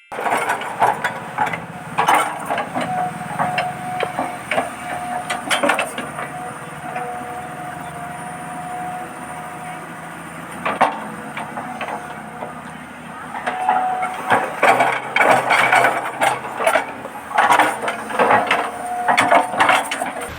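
Radio-controlled model excavator's small electric motors whining in spells of a second or two as the arm works, over repeated wooden knocks and clatters of logs being handled.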